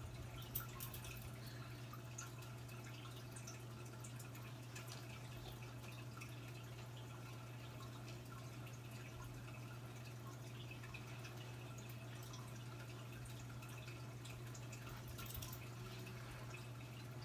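Room tone: a steady low hum with a few faint scattered clicks, one sharper click about half a second in.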